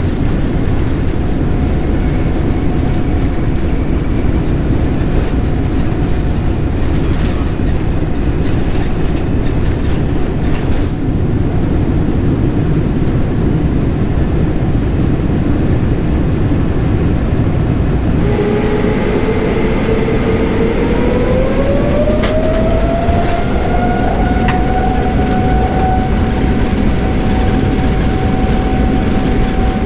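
Jet airliner engines at takeoff heard from inside the cabin, a loud steady rumble with faint steady whines. About two-thirds of the way in the sound changes abruptly to another recording, where a whine climbs in pitch and then holds steady over the rumble as the engines spool up.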